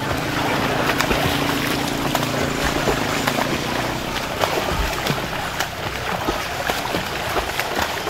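Two swimmers splashing through pool water at front crawl, arms slapping the surface and legs kicking, over a steady wash of churned water.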